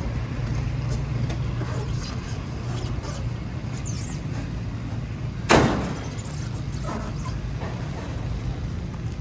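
A pickup truck's tailgate slammed shut with a single loud bang about five and a half seconds in, over a steady low rumble of vehicle engine noise.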